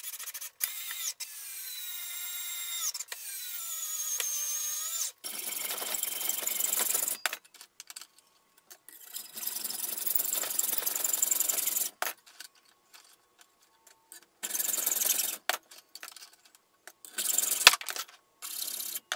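Cordless screwdriver driving screws: its motor whines in a few short runs over the first five seconds, the pitch dipping under load. Then a hacksaw cuts aluminium extrusion held in a bench vise, in four stretches of rasping strokes.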